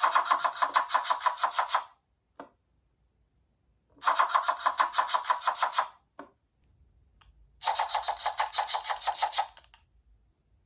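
Miniature cutting-board capsule toy playing its recorded sound of a knife rapidly chopping vegetables through a tiny speaker: three separate bursts of fast, even chopping strokes, each about two seconds long. A few short clicks fall in the gaps between the bursts.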